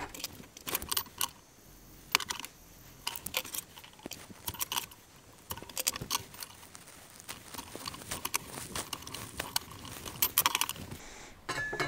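Light metallic clinks and clatter of a small sheet-metal bracket and hand tools being handled on a workbench, in short irregular clusters.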